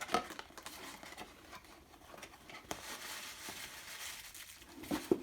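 Cardboard skincare box and its packaging being handled and opened: scattered clicks and taps, then steady rustling and crinkling from about halfway through, with a couple of sharper knocks near the end.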